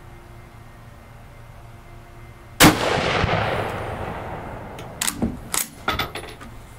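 A single close rifle shot from a scoped Mosin Nagant in 7.62x54R, fired about two and a half seconds in, its report dying away over about two seconds. A few sharp metallic clicks follow about a second later: the bolt being worked to eject the spent case and chamber the next round.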